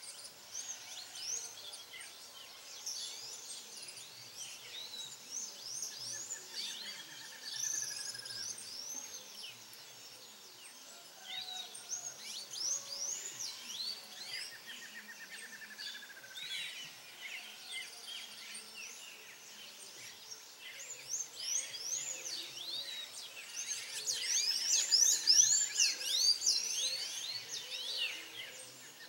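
Dawn chorus of several birds chirping and twittering, with a lower trill falling in pitch that comes back about every seven seconds. The chirping grows denser and louder near the end.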